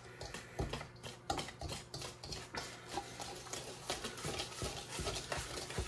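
Wire whisk beating thick pancake batter in a stainless steel mixing bowl: repeated light tapping and scraping of the wires against the metal bowl, a few strokes a second.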